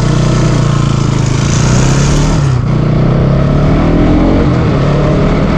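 Bajaj Pulsar NS200's single-cylinder engine running steadily as the motorcycle rides on, with a brief shift in pitch about halfway through.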